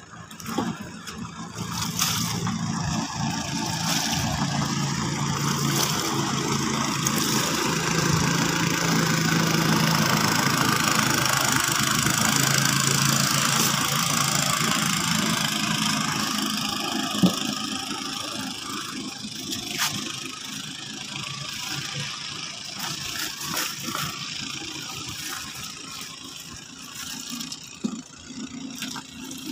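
A small motorboat's engine passing by: its drone grows louder over several seconds, is loudest around the middle, then slowly fades away. A few sharp knocks come in the second half.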